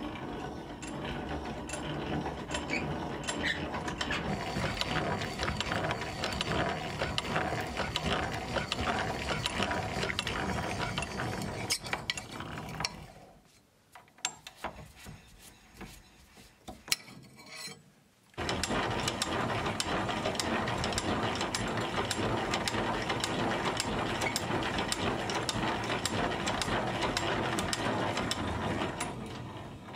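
Antique hand-cranked post drill boring a hole in a mild-steel hinge: its gears and feed ratchet run with a steady fast clicking as the crank turns. About thirteen seconds in it falls quiet for a few seconds, with only a few light clicks, then starts again and stops just before the end.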